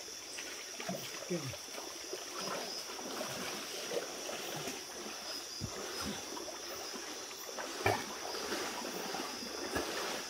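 River water sloshing and trickling as someone moves through it, with a few small knocks and splashes, the sharpest two about two-thirds of the way in. A steady high-pitched drone runs underneath.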